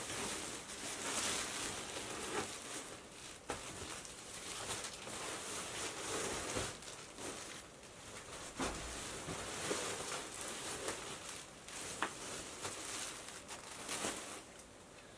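Rustling and crinkling of packaging and fabric being handled, with a few scattered sharp clicks.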